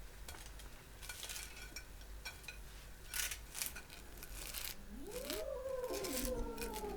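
Light clinks and scrapes of kitchen utensils and dishes, then about five seconds in a cat gives one long meow that rises and falls.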